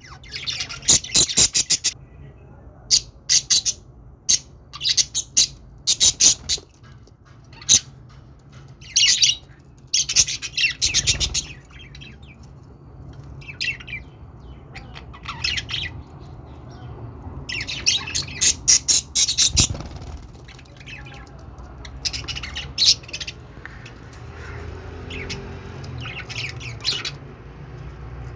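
Budgerigars chirping and chattering in clusters of rapid, high-pitched calls, with short pauses between the clusters.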